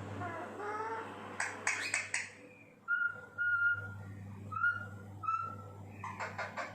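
Alexandrine parakeet whistling a run of about five short, steady notes, with harsh rasping chatter before and after.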